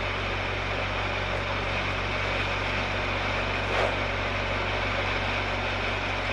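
Steady background hiss with a low hum underneath, unchanging throughout, and one brief faint sound near the middle.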